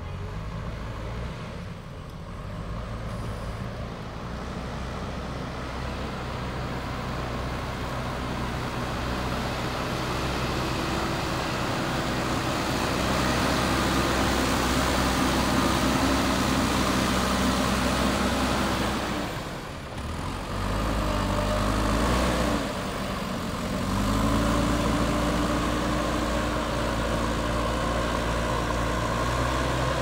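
JCB 3DX backhoe loader's diesel engine running as the machine works, growing louder as it comes near. About two-thirds of the way through, the engine note drops briefly and then climbs back to a steady run.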